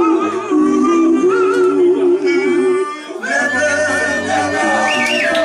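Doo-wop vocal group of four men singing close harmony: sustained chords with a high lead voice on top and a low bass part underneath. The voices break briefly about three seconds in, then come back on a new held chord.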